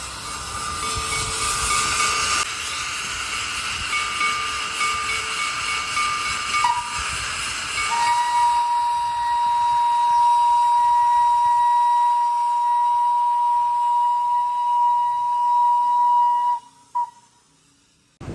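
Steam locomotive whistle blowing over hissing steam. A first whistle sounds through the opening six or seven seconds, then one long steady blast of about eight seconds, then a short final toot.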